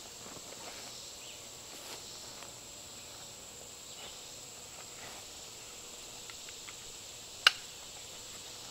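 Steady high-pitched drone of insects in summer woodland, with a few faint rustles and one sharp click near the end.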